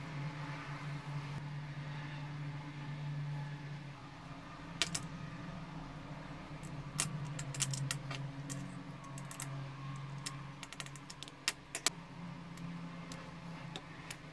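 Small screws and plastic parts of a camera flash being handled on a tabletop during disassembly: light clicks and ticks, scattered from about five seconds in and thickest in the middle, over a steady low hum.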